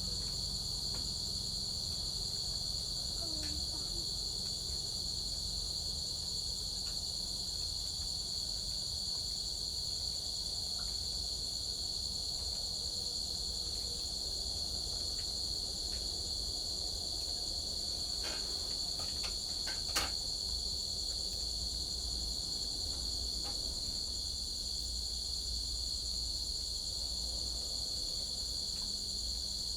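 Crickets chirping in a steady, unbroken high trill, with a single sharp click about two-thirds of the way through.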